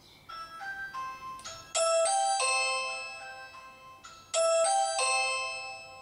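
Ring Chime Pro plug-in chime playing its doorbell tune through its speaker: a soft run of bell notes, then a louder phrase of bell tones about two seconds in, repeated about four seconds in, each ringing out and fading.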